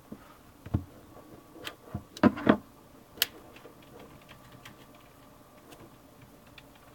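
Hands handling and opening a wrapped CD album's packaging: a few knocks and taps, a louder cluster about two seconds in, a sharp click a second later, then light plastic ticks.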